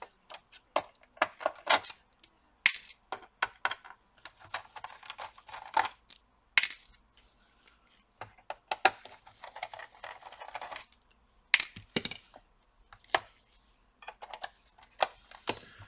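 Scattered small metallic clicks and clinks of a screwdriver and tweezers on a laptop's bare metal keyboard frame, as screws are taken out and a ribbon-cable connector is opened, with some soft rubbing in between.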